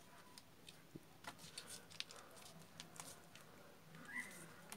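Near silence with a few faint, scattered ticks and rustles from hands squeezing a plastic tube of grease into a motorcycle's swing arm pivot.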